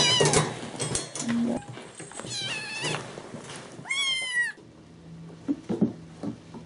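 Kittens meowing: about three loud, high-pitched meows that bend in pitch, in the first four and a half seconds. After that the sound drops to a faint low hum with a few soft knocks.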